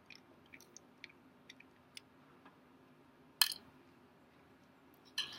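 Small scattered clicks of a tiny Phillips screwdriver working the trackpad screws on an old white MacBook, with one louder sharp click about three and a half seconds in.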